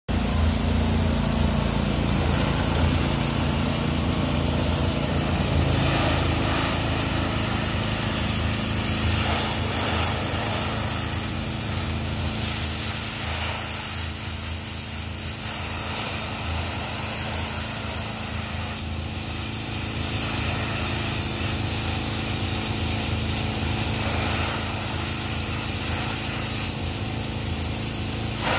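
Landa PGDC 4-3000 pressure washer's gasoline engine running steadily under load, with the hiss of high-pressure water spraying through the Landa Water Jet wide-area surface cleaner.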